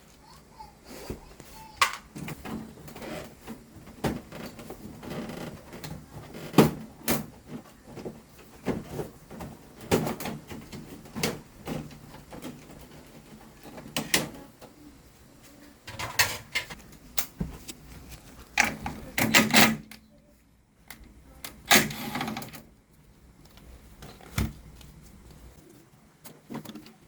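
Irregular knocks, clicks and rattles of plastic and metal parts of a Samsung Hauzen floor-standing air conditioner being handled and pulled apart during disassembly.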